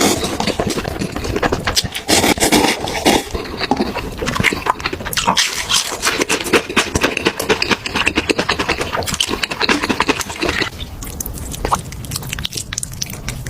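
Close-up eating sounds: chewing and slurping food, with many wet mouth clicks, thinning out and getting quieter a couple of seconds before the end.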